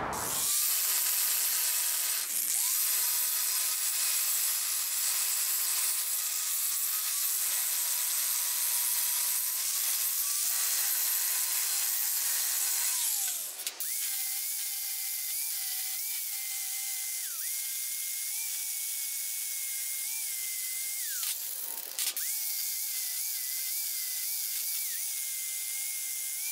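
Electric angle grinder with a composite grinding disc taking mill scale off steel square tubing: a steady whine over a gritty hiss. About halfway through, after a short break, the grinder runs at a higher whine as it grinds the end of a round steel tube, throwing sparks.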